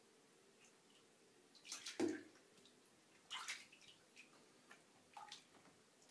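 Cats paddling in a bathtub of water: small, soft splashes and drips, the loudest about two seconds in, with more around three and a half and five seconds.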